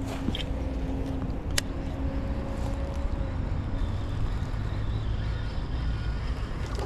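Steady low outdoor rumble, as of traffic, with a faint steady hum for the first few seconds. A few light clicks come through it, the clearest about a second and a half in.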